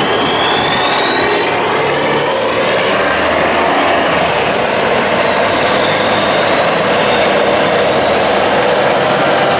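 Vintage Brockway diesel trucks driving by at close range, engines running loud and steady, with a high whine that climbs as a truck approaches, peaks about four seconds in, then drops as it passes.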